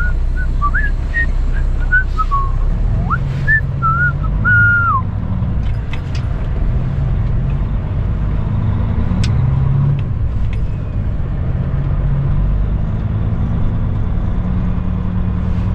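Cab of a 2008 Kenworth W900L, its Cummins ISX diesel running as the truck creeps through the yard, the engine note shifting a few times. During the first five seconds a string of short whistled notes with little slides rides over the engine, ending in one longer held note.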